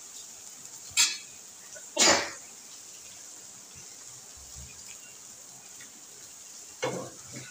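A metal spoon clatters twice on metal cookware about a second apart, the second knock longer. Near the end there are two shorter knocks and scraping as a spatula stirs a thick chilli-garlic mixture in a frying pan, over a faint steady hiss.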